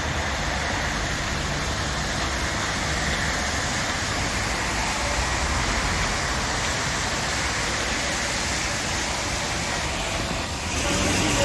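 Steady rain and wind in a city, with the hiss of traffic running on wet roads; near the end the noise shifts and grows louder.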